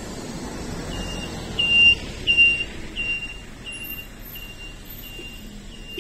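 Repeated short high electronic beeps, about one and a half a second, loudest over the first few beeps and then fainter, over a low background rumble.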